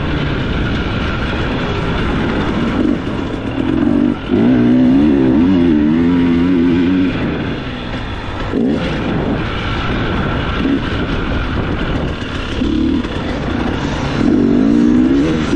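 Dirt bike engine being ridden hard off-road, its pitch rising and falling over and over with the throttle, with the loudest surges about four seconds in and near the end.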